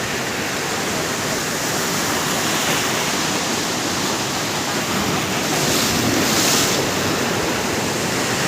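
A loud, steady rushing noise with no distinct events, briefly brighter and hissier about six seconds in.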